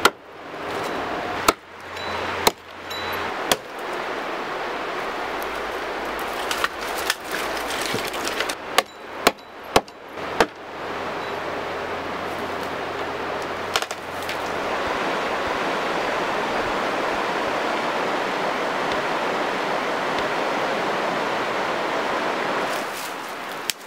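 Hatchet chopping into a fallen tree trunk: about a dozen sharp blows, four spaced about a second apart, then a quicker run of seven. Over it is the steady rush of a nearby river, which carries on alone and a little louder through the second half.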